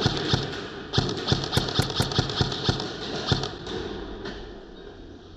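Footsteps thudding about three a second with gear and clothing rustle as an airsoft player moves through a close-quarters arena, with a few sharp cracks between about one and two seconds in; the sound fades in the last second or so.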